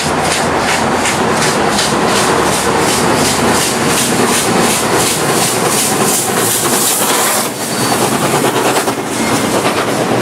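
Steam locomotive 3642 running at speed, with a fast, even beat of about four a second. The beat dips briefly and fades about three-quarters of the way through.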